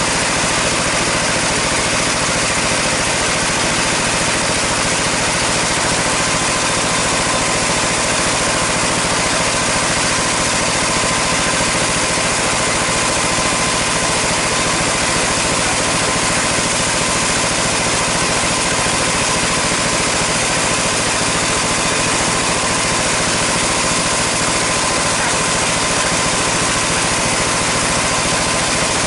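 Band sawmill machinery running steadily: a constant mechanical drone with a steady high whine, unchanging in level throughout.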